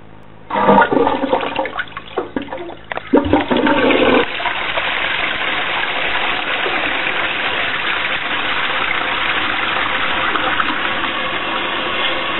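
Toilet flushing: a loud, irregular gush of water starts about half a second in, surges a few times, and from about four seconds in settles into a steady rush of water.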